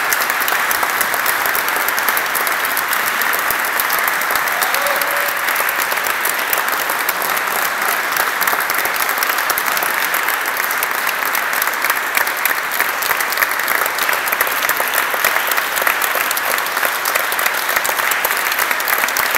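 Audience applauding, a steady, dense clapping of many hands that continues without a break.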